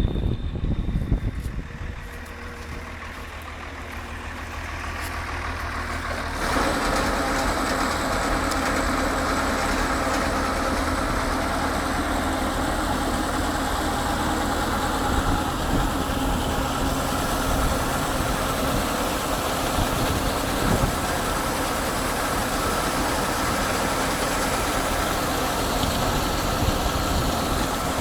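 Rice combine harvester's 160 hp turbocharged Cummins diesel running, quieter and slowly rising for the first few seconds, then stepping up to a louder steady run about six seconds in, with a steady whine on top.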